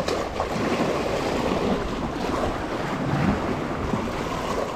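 Small sea waves washing and splashing against the rocks of a breakwater, with a slightly bigger splash about three seconds in.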